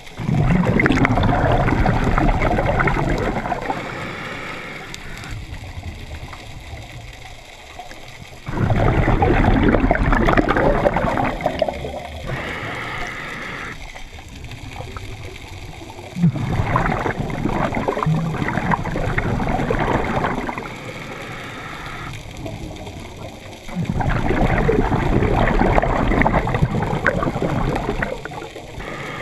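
Scuba diver breathing through a regulator underwater, heard through a camera's waterproof housing: four loud rushes of exhaled bubbles, one about every seven to eight seconds, each fading over a few seconds, with a quieter hiss between them.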